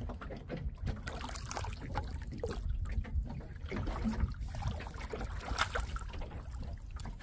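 Water trickling and splashing around a small open fishing boat while a longline is hauled in by hand, with scattered knocks and clicks against the hull.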